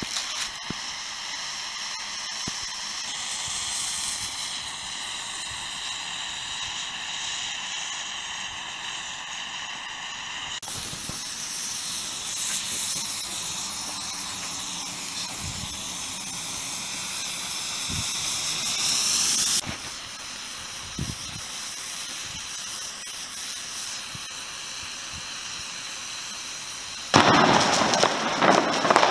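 Bengal-fire fireworks on a stand burning with a steady hiss. About eleven seconds in, a brighter, wider hiss takes over until about twenty seconds, with a few dull thumps. Near the end, a fan of firework fountains starts suddenly with a much louder crackling spray.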